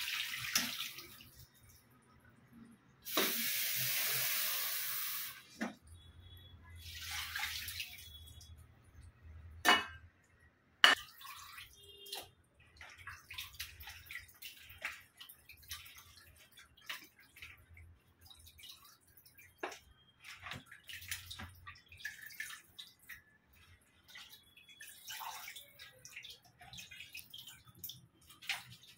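Raw chicken pieces being washed by hand in bowls of water: water poured out for about two seconds, then splashing, dripping and small knocks of wet pieces and bowls, with a sharp knock about ten seconds in.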